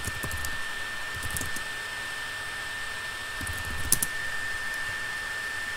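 Faint computer-keyboard clicks of typing over a steady hiss with a constant high whine.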